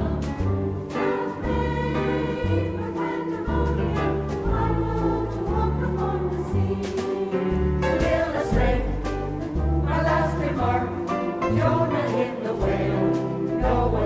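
Mixed choir singing a jazz standard in harmony, backed by a jazz band with piano, upright bass and drum kit; the bass moves to a new note about every half second under the voices, with cymbal hits on top.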